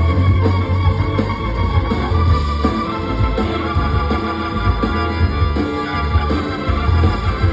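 A live rock band playing: electric guitar and organ over a steady bass line and drums.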